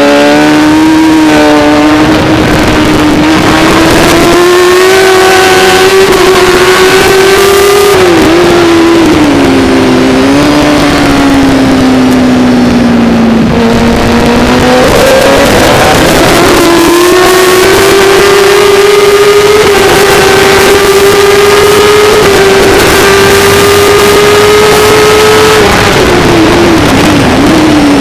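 Racing motorcycle's engine at high revs, heard from an onboard camera over wind rush. The pitch holds steady, sags slowly about halfway through, climbs back quickly, holds again, then wavers and drops near the end.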